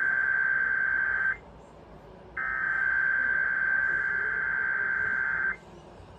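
Emergency Alert System SAME header data bursts: a harsh, rapidly warbling two-tone digital screech sent in long blocks with one-second gaps. One burst cuts off about a second in, and the next runs for about three seconds before stopping near the end. These bursts are the coded header that opens an EAS alert, here a Required Weekly Test.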